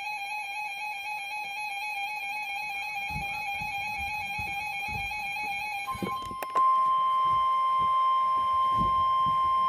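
A warbling electronic alert tone, stepping between two pitches a few times a second, runs for about six seconds. Then the steady 1050 Hz NOAA Weather Radio warning alarm tone comes on and jumps louder, the signal that a warning broadcast is about to follow.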